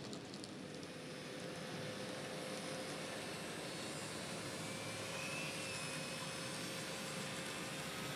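N scale model locomotives running on the layout, their Kato C30-7 chassis motors giving a steady whir along with wheel noise on the track, with a held hum throughout.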